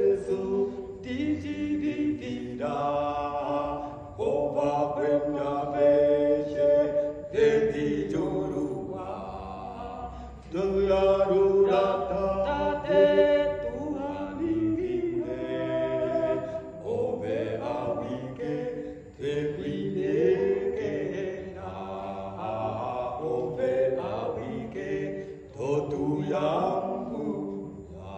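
Two men singing unaccompanied, a cappella, in long held notes that now and then slide in pitch.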